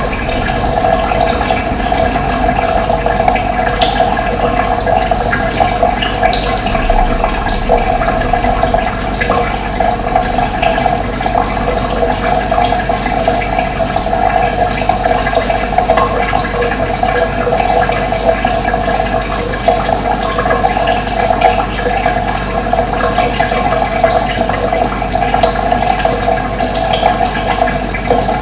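Running water rushing steadily, a constant even rush with no breaks.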